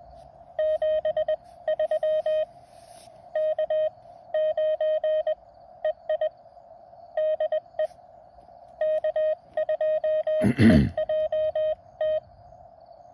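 Morse code (CW) tone from a ham radio transceiver, one steady pitch keyed on and off in quick dots and dashes. A brief loud thump comes about ten and a half seconds in.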